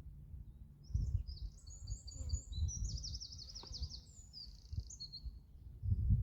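A songbird singing a phrase of about three seconds: quick high notes, then a fast trill, then a few closing notes. Underneath is an uneven low rumble that grows louder near the end.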